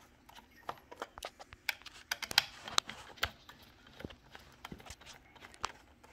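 A small Torx screwdriver clicking and scraping in the screw heads as Torx screws are backed out of a plastic gauge housing. The clicks and taps are irregular, with a busier run of them about two to three seconds in.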